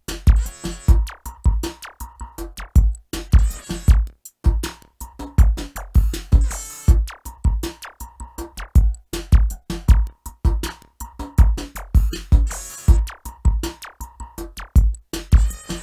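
Lo-fi electronic music on an M-Audio Venom synthesizer: a drum-machine beat of rapid low kick pulses and clicky percussion over a held synth tone, with a noisy hiss-like hit about every three seconds.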